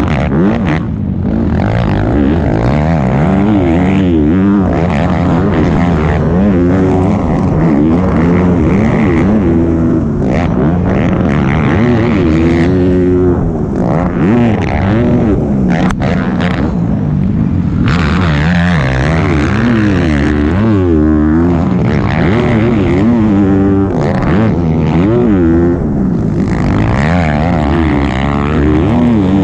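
Honda CRF250R's single-cylinder four-stroke engine heard on board at race pace, revving hard and rising in pitch, then dropping back as the rider shifts or backs off, over and over through the lap.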